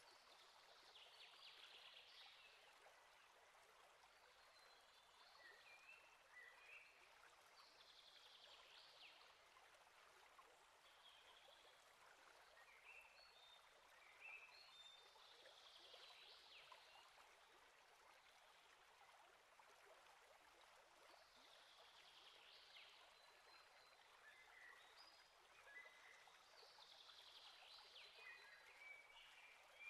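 Faint riverside ambience: a soft, steady hiss, with a distant songbird singing a short phrase of chirps and whistles every six or seven seconds.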